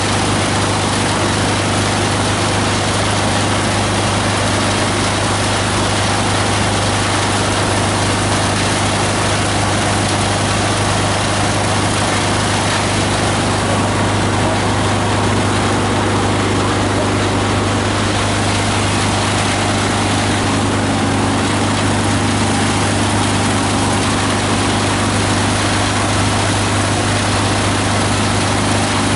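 The 18 HP diesel engine of a multi-blade plastic grinder running steadily, a strong low hum under a dense, even machine noise that does not change.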